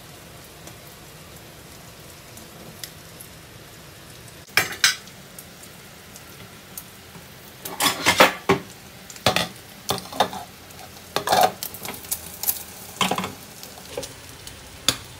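Egg, shrimp and okra frying in a nonstick pan with a faint, steady sizzle; from about four and a half seconds in, a run of sharp clinks and clatters of cookware handled over the pan.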